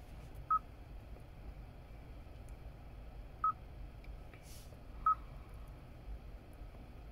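Hyundai Ioniq 5 infotainment touchscreen giving three short single-pitched confirmation beeps as menu items are tapped: one about half a second in, one about three and a half seconds in, one about five seconds in. A faint low hum runs underneath.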